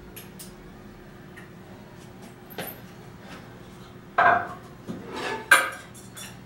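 Metal clinking and clanking of a home-gym cable machine's handles and clips being handled, with a few light clicks, then a loud clank about four seconds in and another about a second later.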